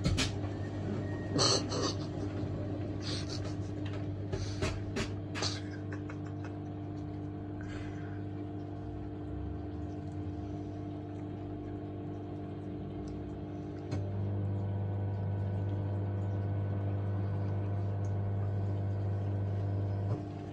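Asko washing machine tumbling a wet, sudsy load with its motor humming steadily and the laundry knocking and splashing in the first few seconds. About 14 s in a louder steady low hum joins, then cuts off just before the end. The machine is trying to reach its first spin but is held back by a suds lock.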